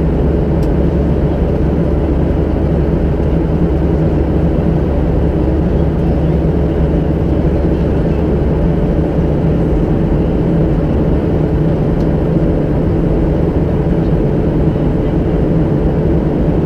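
Steady in-cabin noise of a Boeing 737-700 flying at altitude: the even drone of its CFM56 turbofan engines and the rush of air past the fuselage, heard from a window seat inside the cabin. The sound is low-pitched and unchanging.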